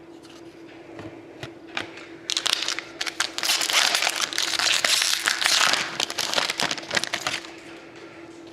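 Crinkling and crackling of a foil trading-card pack wrapper being handled, which starts about two seconds in and dies away after about six seconds, over a faint steady hum.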